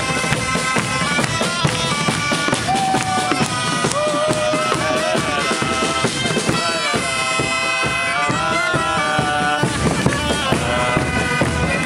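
Mallorcan bagpipes (xeremies) and bass drums playing a dance tune: a reedy melody with a steady drone over a continuous drumbeat.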